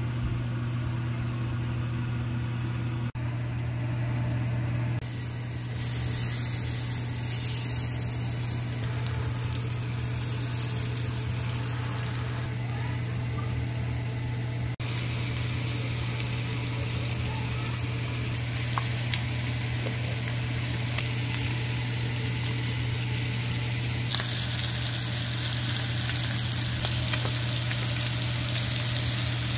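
Steelhead fillets sizzling as they fry in hot oil in a pan, a steady hiss over a constant low hum. The sizzle is lighter in the first few seconds, grows brighter near the end, and changes abruptly at a few cuts.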